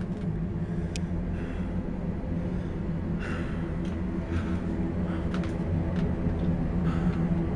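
Steady low hum, with a few faint soft knocks and rustles scattered through it.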